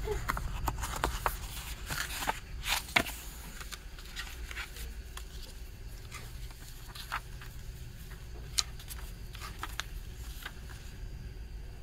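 Paper inserts and a lyric booklet being handled: sheets slide and rustle, with a run of sharp crinkles in the first three seconds, loudest at about three seconds in, and booklet pages flipping near the end.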